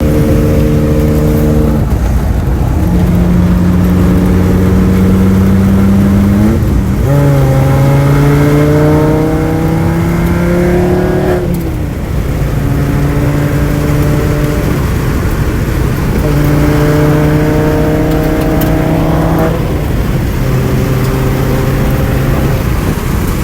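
2007 Volkswagen Rabbit's 2.5-litre five-cylinder engine running loud under load, shifted through the gears of its five-speed manual. Its note holds or climbs for a few seconds at a time and then drops at each change, several times over.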